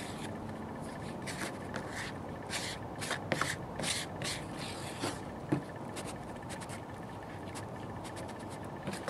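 Bondo body filler being mixed with its hardener, a mixing tool scraping and folding the paste in short, irregular strokes, busiest in the first half.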